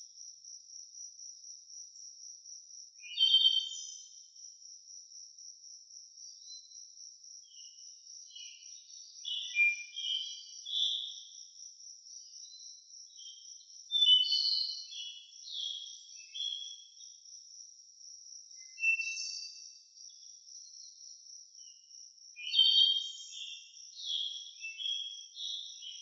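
Crickets keep up a continuous high, pulsing chorus. Over it, songbirds sing short phrases every few seconds, and these phrases are the loudest sounds.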